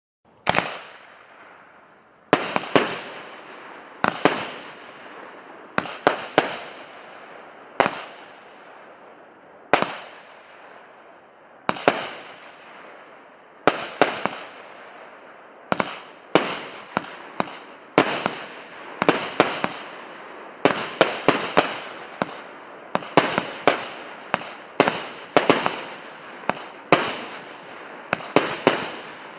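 A 100-shot, 1.2-inch firework cake firing: sharp reports, each trailing off in a fading hiss. They come about every two seconds at first, then in quicker clusters of several shots from about halfway through.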